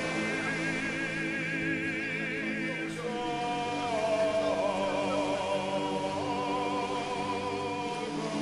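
Slow background music: long held melody notes with vibrato, in an operatic vocal style, over sustained low chords.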